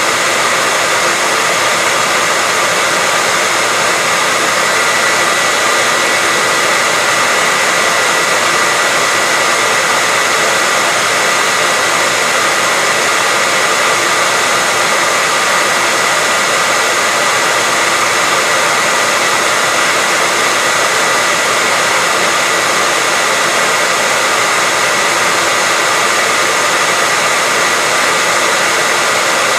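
Hairdryer running steadily: a continuous airy rush of fan noise with a steady high whine.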